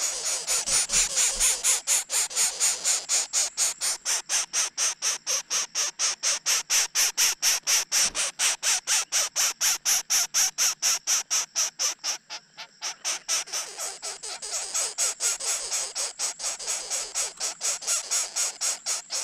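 Greater coucal nestlings begging at the nest: a fast run of harsh rasping pulses, about five a second. It weakens briefly about twelve seconds in, then picks up again.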